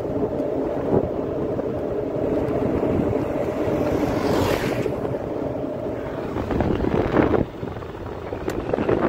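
A vehicle engine drones steadily while riding along a road, with wind buffeting the microphone. About halfway through, an oncoming SUV passes with a brief rush of sound.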